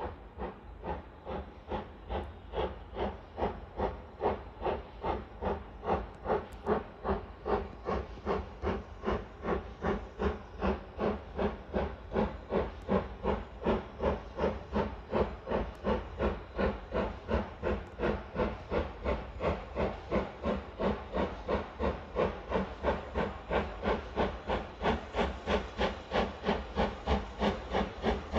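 BR Standard Class 4MT 2-6-4 tank locomotive 80078 working hard under power, its two-cylinder exhaust beating evenly at about three beats a second and growing louder as it approaches.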